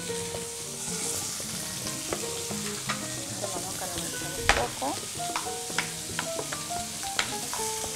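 Sliced red and white onions sizzling in hot oil in a frying pan, tossed and stirred with a metal ladle that clicks and scrapes against the pan, with one louder knock about halfway through.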